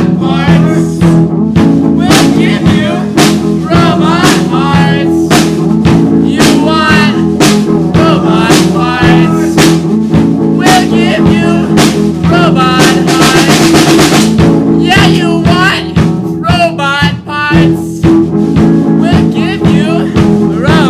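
A band's song playing: sung vocals over guitar and a drum kit.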